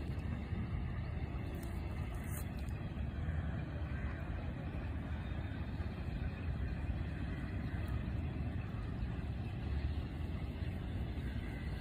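Steady low outdoor rumble with a light hiss and no distinct events.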